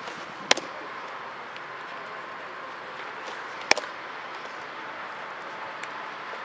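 Baseball popping into a catcher's leather mitt twice, about three seconds apart: two sharp pops over steady background noise.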